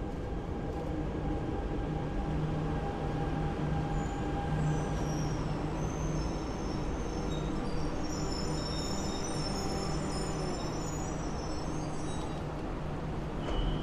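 CRRC metro train pulling into an underground station and slowing to a stop: a steady rumble of the cars, with thin high squeals as it slows. Just at the end, a repeating beep sounds as the doors open.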